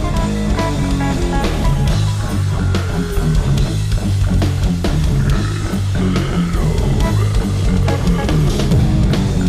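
Rock band playing: electric guitars, bass guitar and drum kit together.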